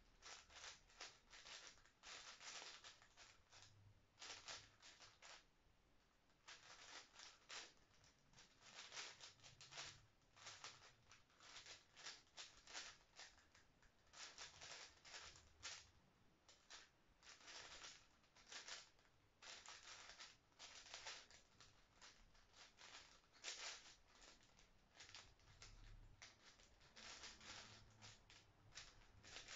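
A 5x5 speedcube being turned fast by hand: faint, rapid clicking of the plastic layers, in quick bursts with short pauses between.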